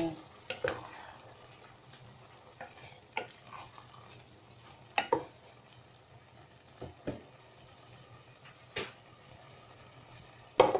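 A wooden spatula stirring and tossing noodles and vegetables in a metal cooking pot, with scattered irregular knocks and scrapes against the pot, the loudest near the end, over a faint sizzle from the sautéing food.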